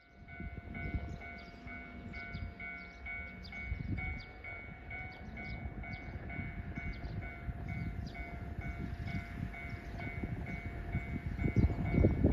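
Japanese railway level-crossing warning bell ringing steadily, a two-tone electronic clang about three times a second, signalling an approaching train. Under it a low rumble grows louder near the end.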